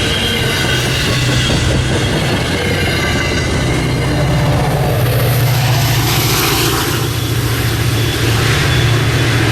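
Commuter train running past, a loud steady low drone from the locomotive under a haze of rail and wheel noise; a faint high wheel squeal fades out in the first couple of seconds.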